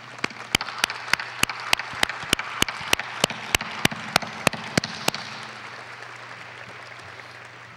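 Audience applause in a large hall, with one person's sharp, close hand claps at about three a second standing out for the first five seconds; the applause then tapers off.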